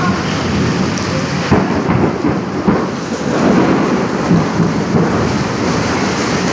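Heavy rain pouring down steadily, with a low rumbling underneath.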